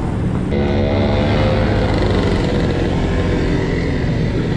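Wind buffeting the helmet or handlebar camera microphone while riding a road bike. From about half a second in, a motor vehicle's engine runs close by as a steady hum.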